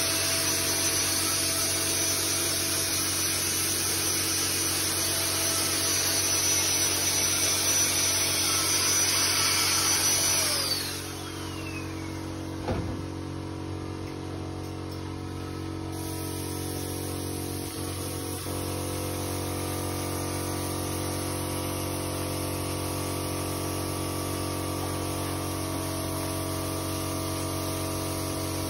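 A high-speed electric motor runs with a high whine, then is switched off about ten seconds in and spins down in a falling whine. A steadier, lower machine hum carries on underneath, with a single click shortly after the motor stops.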